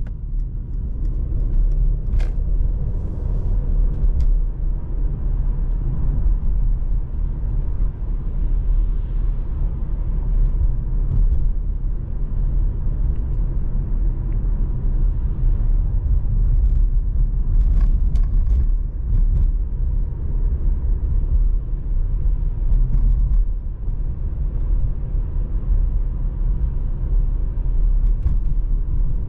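Steady low rumble of road and engine noise from a 2020 Mercedes-AMG C43 with a 3.0-litre twin-turbo V6, cruising at an even pace with no revving. A few faint clicks come through about two seconds in and again around the middle.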